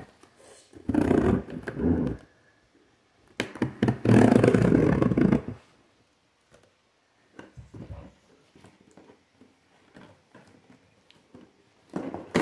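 Cardboard box scraped and rubbed as its packing-tape seam is cut open: two long rough scraping bursts, then faint taps and rustles, with a short scrape near the end.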